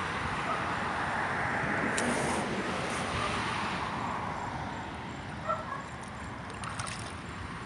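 Shallow water sloshing and lapping as a large fish is held in it and worked back and forth to get water over its gills and revive it before release. A few small splashes come near the end.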